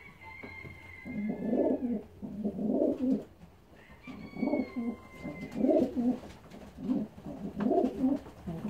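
Racing pigeons cooing: a run of low coos about once a second. A thin high whistling tone sounds twice, near the start and about halfway.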